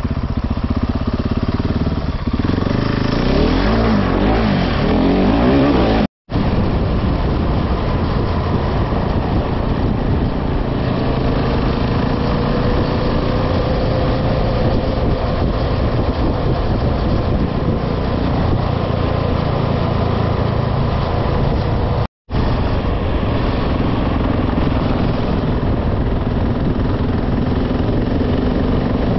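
Motorcycle engine running under way, its pitch shifting in the first few seconds and then holding steadier, with wind and road noise throughout. The sound cuts out completely twice, for a split second each time.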